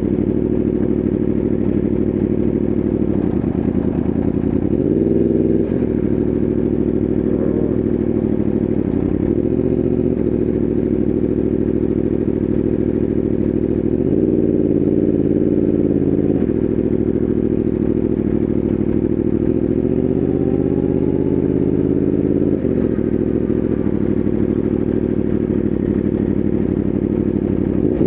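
Yamaha R1M's crossplane inline-four engine running under way, a steady engine note that changes pitch several times as the rider works the throttle and gears.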